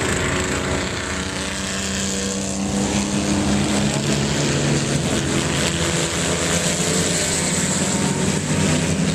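Engines of vintage jalopy coupe race cars running together as the pack circles a dirt oval. Several engine notes overlap, steady with slow rises and falls in pitch.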